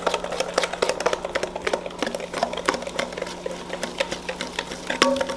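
Wire whisk clicking rapidly and unevenly against a stainless steel mixing bowl as cornbread batter is stirred.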